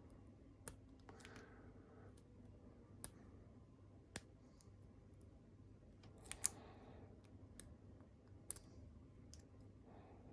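Lock pick and tension wrench working the pin stack in the keyway of a Master Lock M530 padlock: faint, isolated small metallic clicks every second or few, with a little light scraping.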